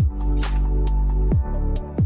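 Background electronic music with a steady deep bass and a kick drum whose pitch drops sharply on each hit, about three times, over higher percussion.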